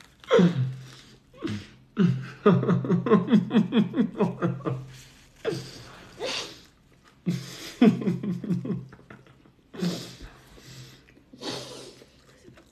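A man laughing hard in several fits of quick, pulsing ha-ha sounds, with breathy gasps for air between them.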